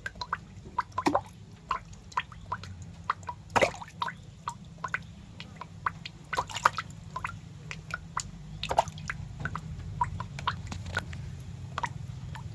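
Irregular wet clicks and drip-like plinks, several a second, over a low steady hum.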